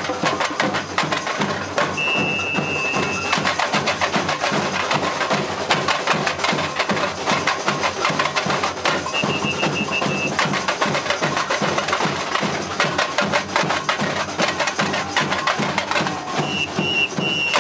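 Samba bateria playing a dense batucada of drums and hand percussion. A high whistle sounds three times over it, about two seconds in, around nine seconds in, and in short blasts near the end.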